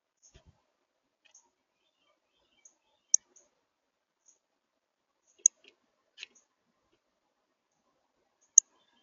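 A small bird giving short, high chip notes at irregular intervals. Three sharp chips stand out, about three seconds in, about five and a half seconds in and near the end, with fainter ones between them. A brief faint scratch comes about six seconds in.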